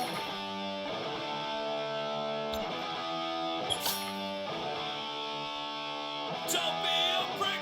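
Music led by guitar: held chords that change about every two seconds, with a sharp crash near the start and another about four seconds in.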